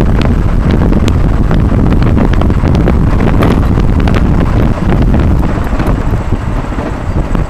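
Wind buffeting the microphone of a camera on a moving 150 cc motorcycle, with the bike's engine and road noise underneath. The buffeting grows more uneven in the last couple of seconds.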